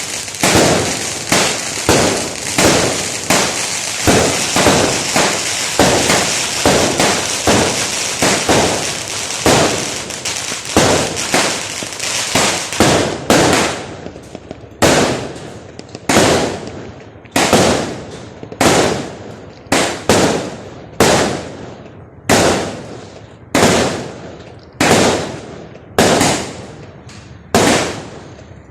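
Fireworks bursting. For about the first half there is a dense run of overlapping bangs over steady crackling. After that come separate bursts, each dying away, at roughly one a second.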